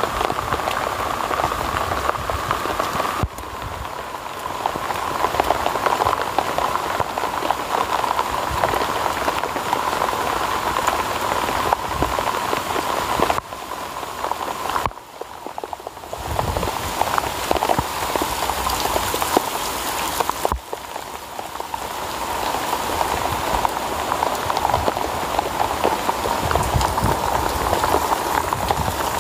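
Heavy rain falling, a dense steady patter of drops, with the level dipping briefly a few times.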